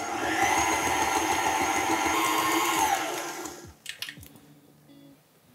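KitchenAid stand mixer whipping cream with raspberry powder toward stiff peaks: a steady whirring that rises in pitch about half a second in as it speeds up, then winds down and stops about three seconds in. A few light clicks follow.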